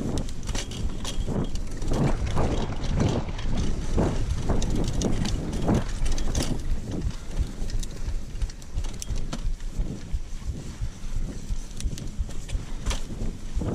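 Mountain bike riding along a dirt trail: tyres rolling over the ground and the bike clattering with many short knocks and clicks over bumps, over a low rumble of wind on the camera microphone.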